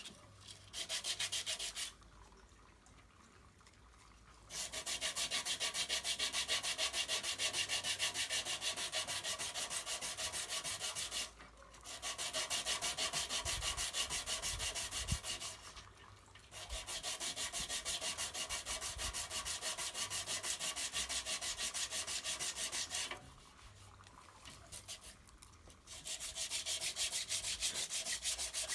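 Dry sanding of body filler: abrasive paper rubbing over the hardened filler with a steady scratchy rasp. It comes in long bouts with short breaks, about four of them.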